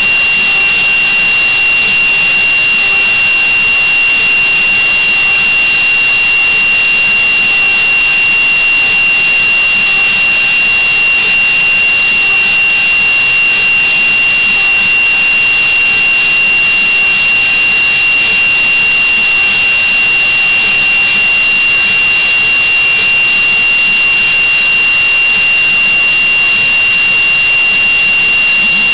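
CNC mini router spindle running at speed while an end mill cuts carbon steel: a steady high-pitched whine over a constant hiss of cutting.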